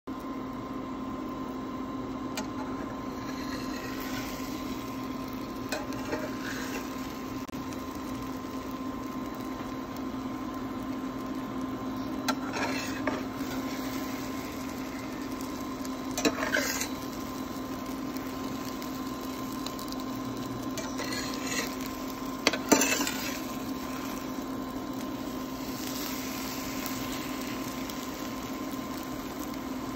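Spatula scraping and pushing scrambling eggs across a stainless steel frying pan, in about six short scrapes, the loudest about three-quarters of the way through, over a steady hum.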